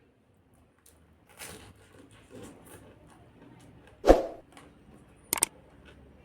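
Soft eating and handling noises, with a loud thump about four seconds in and two sharp clicks about a second later.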